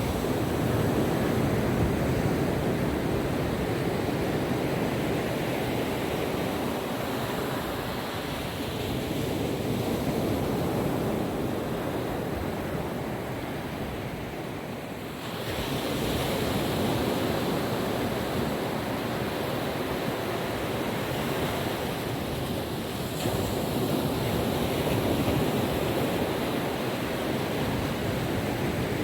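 Calm ocean surf washing onto a beach in slow swells, with wind on the microphone. About halfway through, the sound dips and then jumps back up abruptly.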